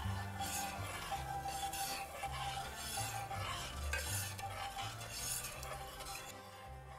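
A spoon stirring sugar into hot grape juice in a cooking pot: repeated scraping strokes, over quiet background music with a low bass line.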